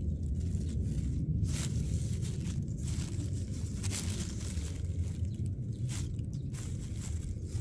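Rustling of leafy plants and black plastic mulch as a hand handles the stems, a few brief rustles over a steady low rumble.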